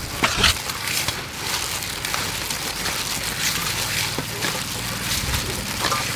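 Gloved hands squishing and mixing a wet chili sauce in a metal bowl, with a few sharp clicks, over steady background noise.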